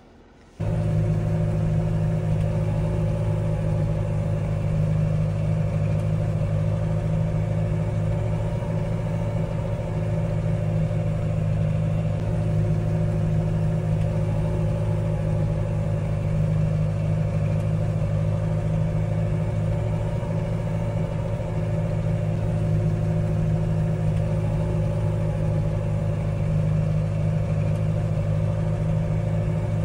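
An engine running steadily with an even low drone, starting abruptly about half a second in.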